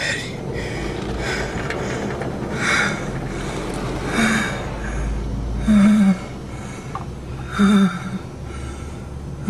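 A man gasping and breathing hard in mock fright, with repeated sharp gasps about every second and a half and a few short whimpers in the second half, inside a car. Behind him runs the steady rushing noise of the car wash's water spraying on the car, with a low rumble in the middle.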